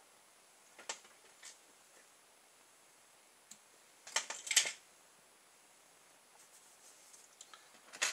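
Scattered short clicks and light scrapes from hands handling small fly-tying tools at the vise, with the loudest cluster of clicks about four seconds in and a few smaller ticks near the end.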